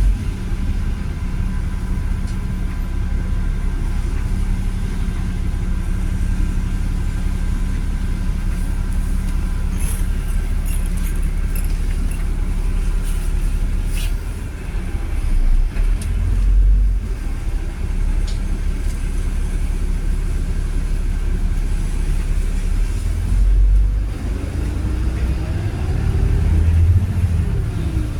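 Volvo B7RLE single-deck bus with a Voith automatic gearbox on the move, its diesel engine giving a steady low rumble with a few rattles and clicks. Near the end the engine note rises as the bus accelerates.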